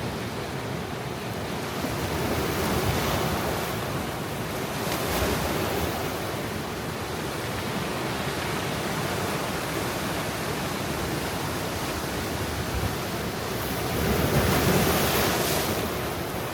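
Ocean surf at high tide: a steady wash of water with waves breaking in swells, three of them standing out, the biggest near the end.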